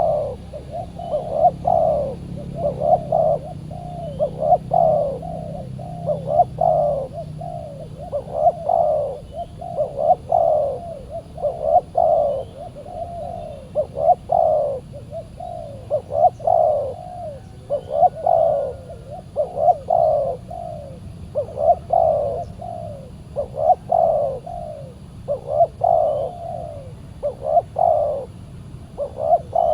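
Spotted doves (tekukur) cooing over and over, a short phrase of a few low notes about every two seconds.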